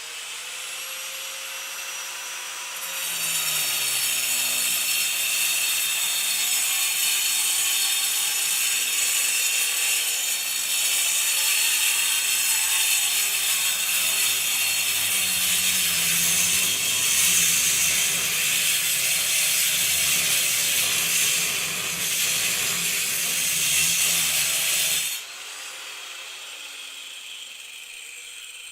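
Angle grinder with a cutting disc cutting concrete. The motor spins free at first, then the disc bites into the concrete with a loud, steady grinding for about twenty seconds, and near the end it is lifted out of the cut and the sound drops to the free-spinning whine.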